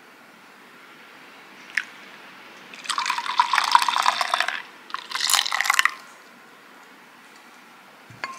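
Milk poured in a thin stream into egg mixture in a glass bowl: two pours, the first about two seconds long and the second about one, with a short click a second before them.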